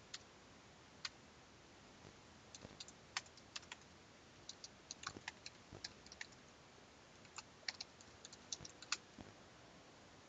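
Faint typing on a computer keyboard: sparse keystrokes in short runs with pauses between, as short shell commands are entered.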